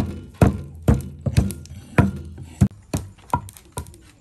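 Repeated sharp knocks of wood being struck in food preparation, about two a second. They grow fainter and stop near the end.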